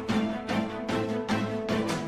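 Background music with a steady beat and held notes.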